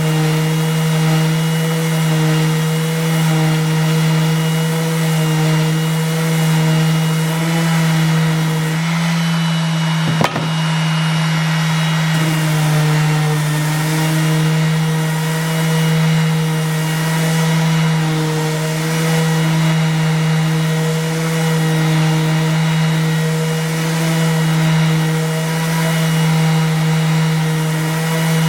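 Electric random orbit sander running steadily against timber, its motor hum holding a constant pitch throughout. There is one brief click about ten seconds in.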